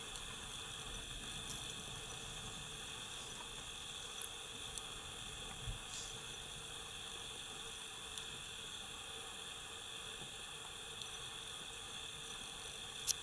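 A steady, faint chorus of insects buzzing at a few high pitches, with a few light clicks and one soft low thump about six seconds in.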